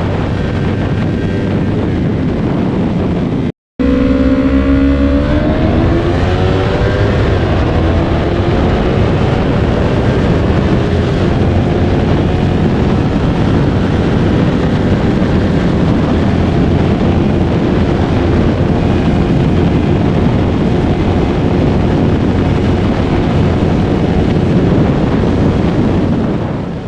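Yamaha R3's parallel-twin engine through an aftermarket Jeskap full exhaust, riding at speed with heavy wind rushing over the microphone. After a brief cut about four seconds in, the engine note rises as the bike accelerates, then holds steady at high speed.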